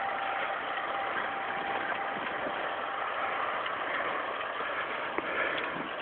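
A car moving slowly, its engine and road noise making a steady, even rush.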